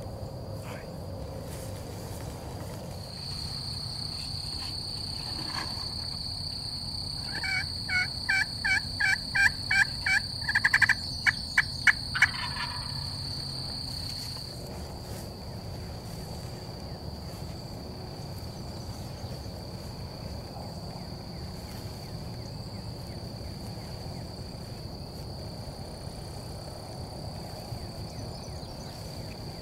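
Wild turkey calling close by: a loud run of rapid, evenly spaced notes lasting about five seconds, starting about seven seconds in and quickening toward the end.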